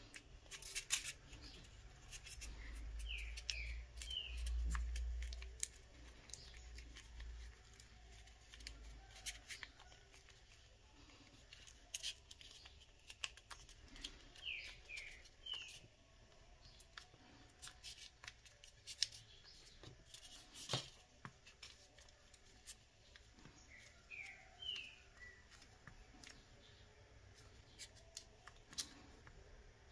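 Scattered small clicks and taps of hands and tools working cold-porcelain clay on a work table, with a low rumble for several seconds near the start. Brief high chirps come three times, about ten seconds apart.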